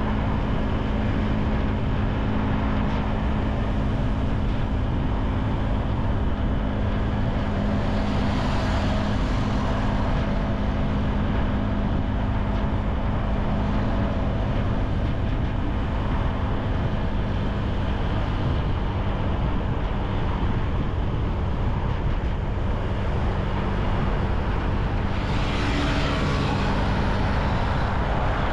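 Ride-along sound from a motorcycle in city traffic: steady wind and road rumble with a low engine hum. A louder hiss swells twice, about nine seconds in and again near the end.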